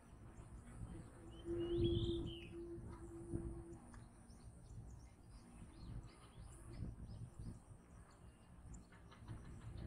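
Birds chirping and calling, with one louder warbling call about two seconds in, over low rumbling noise and a brief steady low hum.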